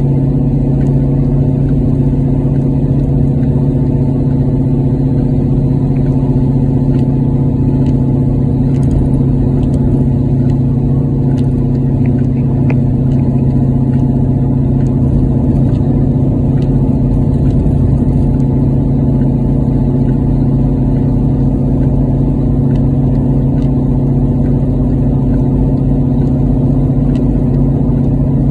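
Car engine and road noise heard inside the cabin while cruising at a constant speed on a wet highway: a steady, unchanging drone.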